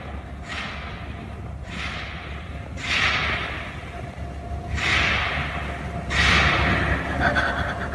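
Giant panda sneezing repeatedly: five sharp, breathy bursts a second or two apart, each dying away, the loudest near the end.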